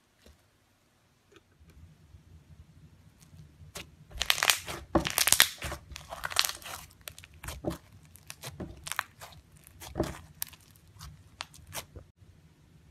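Pink foam-bead slime squeezed and pressed by hand, crackling and crunching. It starts faint, turns into a dense run of sharp crackles about four seconds in, and thins out near the end.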